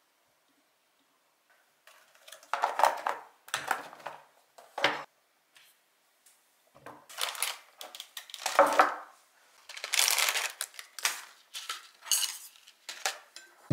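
Tableware being handled on a table, a ceramic plate and a plastic food container set down and moved about. Short clatters, knocks and scrapes come in irregular clusters, starting about two seconds in.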